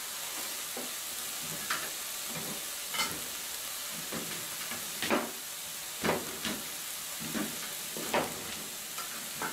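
Diced onion and tomato sizzling in oil in a nonstick frying pan: a steady hiss with a sharp crackle about every second.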